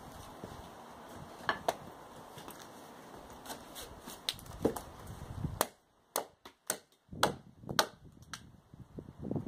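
Small hatchet chopping into a square wooden batten: a dozen or so sharp chops of blade into wood, irregular at first, then quicker, about two a second, in the second half.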